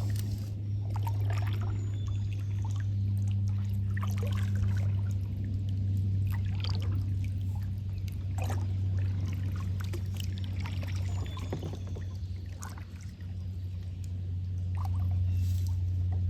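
Water trickling and splashing from paddles and the boat on a river, in irregular short splashes. A steady low hum runs underneath.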